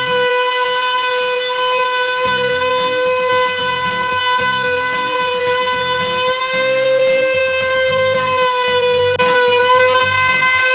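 Circular saw motor of a homemade table saw running steadily with a high whine, over background music with a beat.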